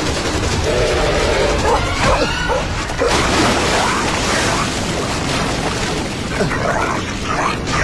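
Film soundtrack: dogs barking in a chase over background music, then from about three seconds in a sudden loud rush of river water as the rapids take over.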